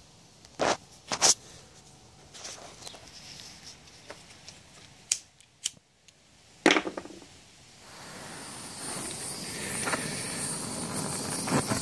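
Several sharp clicks from a handheld torch's igniter as it is struck repeatedly, then a steady hiss that builds from about eight seconds in.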